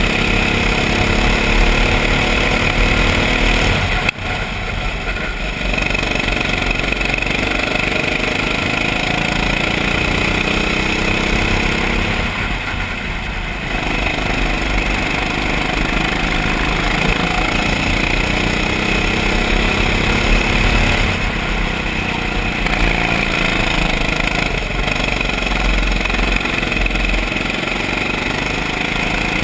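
Go-kart engine heard from the driver's seat, its revs climbing along the straights and falling back three times as the kart lifts off for corners. A sharp click about four seconds in.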